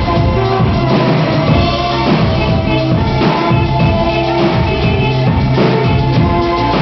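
A live band playing loud: a drum kit keeping a steady beat under held keyboard or synthesizer tones and a bass line.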